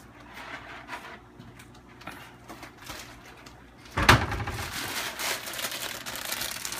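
A sudden knock about four seconds in, then continuous crinkling and rustling of a plastic bag of elbow macaroni being handled.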